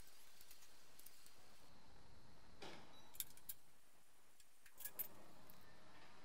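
Faint, scattered metallic clicks and clinks of hand tools and parts being handled on a bare engine block, a few sharp ones a little after the middle and near the end.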